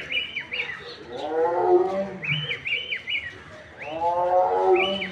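Animal calls: groups of three or four short, high, hooked notes, and twice a lower, drawn-out call falling in pitch.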